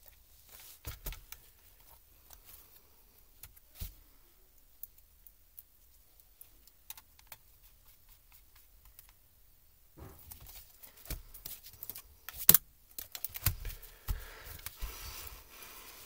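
Plastic and metal clicks and knocks from a laptop palm-rest top case and its metal keyboard plate being pressed and handled. A few scattered clicks come first, then a quiet stretch, then a busy run of clicks and taps in the second half, the sharpest about three quarters of the way through.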